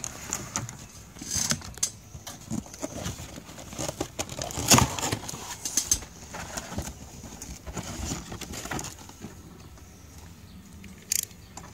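Cardboard box flaps and plastic packaging being handled: irregular rustling, scraping and light knocks, the sharpest knock about five seconds in, growing quieter near the end.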